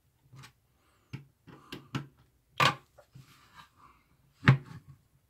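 Handling noise from an opened soldering station's plastic housing: a string of light clicks and knocks as it is gripped and turned over. Two louder knocks come about two and a half and four and a half seconds in.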